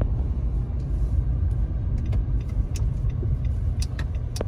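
Car driving, heard from inside the cabin: a steady low road and engine rumble, with a few sharp clicks in the second half.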